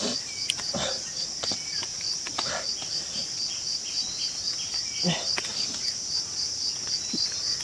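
High, steady insect chorus from crickets or cicadas, pulsing about four or five times a second. A few short knocks or scrapes sound nearby, near the start and about five seconds in.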